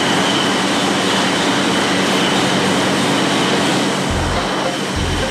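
Beer bottling line running: brown glass bottles jostling along a conveyor amid a loud, steady machine rattle and hum, with a thin high whine held throughout. Near the end, low thuds about once a second start.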